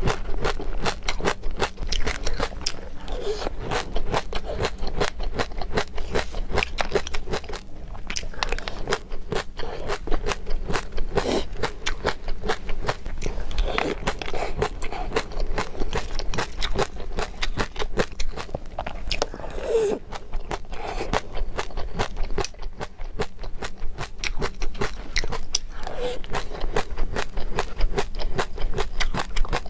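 A mouthful of crunchy mixed seeds with yogurt being chewed, a dense, continuous run of small crackling crunches.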